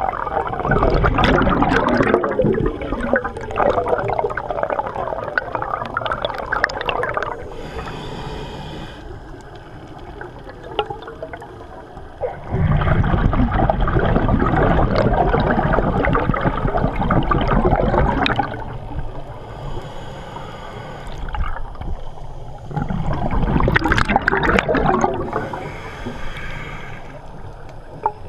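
Scuba regulator breathing heard underwater: three long exhalations of rushing, bubbling air, each followed by a quieter hissing inhale.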